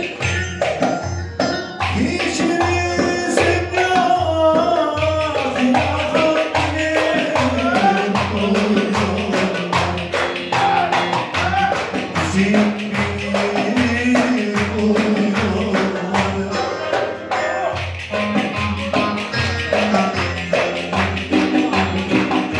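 Ankara oyun havası dance music: a saz (bağlama) melody over a steady drum beat about twice a second.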